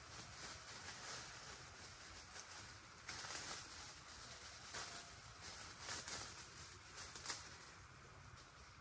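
Faint, irregular rustling and crackling of durian leaves and branches, with a few louder rustles about three seconds in and again around six to seven seconds.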